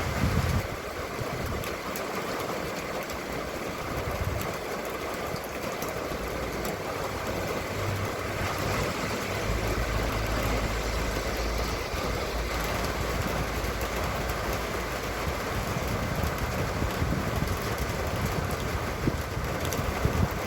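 Steady rain falling, with a low engine drone that comes in about eight seconds in and fades a few seconds later.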